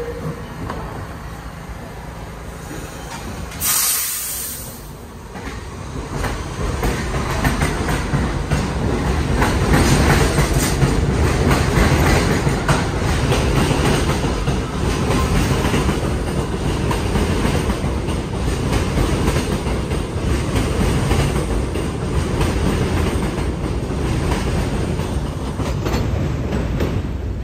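New York City Subway 1 train of R62A cars pulling out of the station, its wheels clattering over the rail joints and the rumble building as it gathers speed. A short, loud hiss comes about four seconds in, before it moves off.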